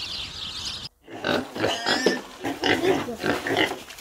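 Domestic pigs grunting and squealing, a rapid, irregular run of short calls starting about a second in. Before that, a steady high hiss of background ambience.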